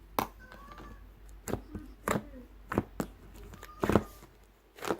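Sharp, irregular taps or knocks on a hard surface, about six in five seconds, the loudest about four seconds in, with faint brief voice sounds between them.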